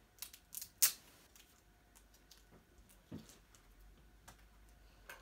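A small plastic surprise packet being handled and worked at: a few sharp clicks and crinkles, the loudest just before a second in, then a soft knock about three seconds in, with scattered faint ticks.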